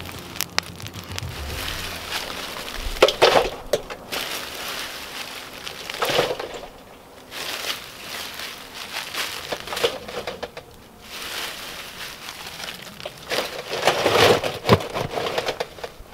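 Dry, loose pine bark strips rustling and crunching as they are scooped up by hand and gathered into a metal trash can, in several separate bursts with quieter gaps between.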